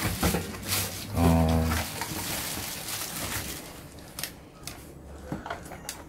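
Plastic wrapping crinkling and rustling as a cordless vacuum's floor head is unwrapped, with a few light clicks and knocks near the end.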